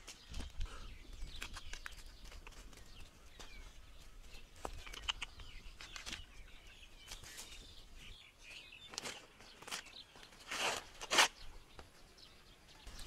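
Outdoor ambience with birds chirping faintly and scattered small knocks and scuffs of handwork. Two louder rustling swishes come about ten and eleven seconds in.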